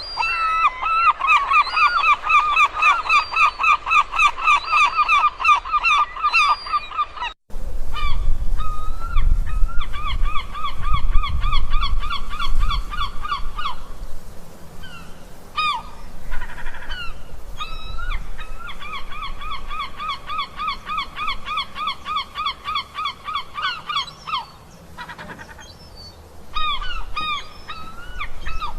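Seagulls calling in long runs of rapid, repeated honking notes, about seven a second. The calls break off sharply about seven seconds in, then come back in several more runs over a low rumble.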